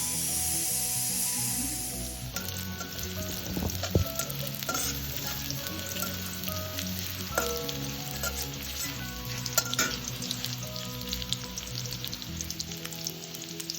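Food frying in oil in a pan, a loud hiss for the first couple of seconds settling into steady sizzling and crackling. A few sharp clicks of a utensil stirring against the pan.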